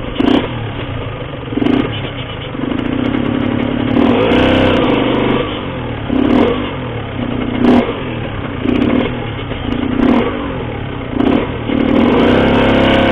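Cagiva Mito two-stroke motorcycle with an Arrow exhaust running on the move. Its revs rise and fall again and again, with short throttle pulses about every second.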